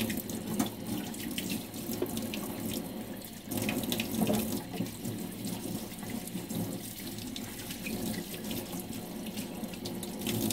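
Kitchen tap running into a sink, with water splashing and a few light clicks.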